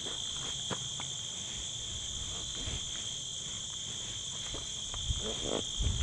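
Steady, high insect chorus of crickets in the grass and brush. Scattered soft clicks and rustles, with a few low knocks near the end, from the backpack and its tarp cover being handled.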